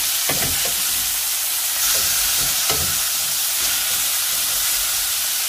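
Flour-dredged chicken cutlets sizzling in oil and butter in a stainless steel skillet, a steady frying hiss. A few soft knocks in the first few seconds as the cutlets are turned with metal tongs.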